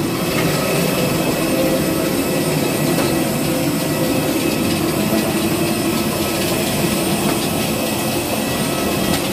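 Steady jet turbine noise of aircraft on the airport apron: a continuous low rumble with thin, steady high whining tones, and a few faint knocks.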